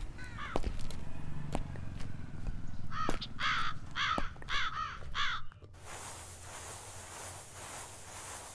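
A crow cawing: a quick run of about six harsh caws, from about three seconds in to about five and a half, with a few sharp ticks before them. Then the sound cuts to a steady, quieter hiss.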